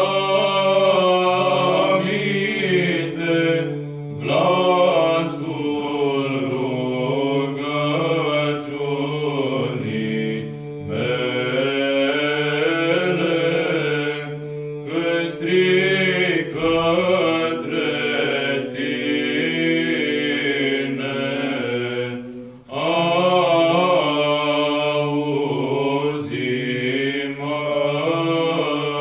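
Romanian Byzantine (psaltic) chant in the seventh tone: unaccompanied chanters sing a flowing melody over a steady held drone (ison). The singing breaks off briefly about 23 seconds in, then resumes with the drone.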